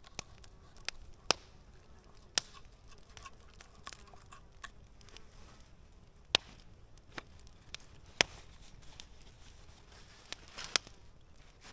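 Knife work on a slab of raw meat laid on split firewood: scattered sharp clicks and knocks at irregular intervals, about half a dozen of them loud, with smaller ticks in between.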